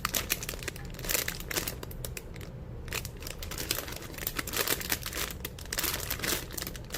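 Plastic packaging crinkling and crackling irregularly as a squishy toy and its wrapper are handled.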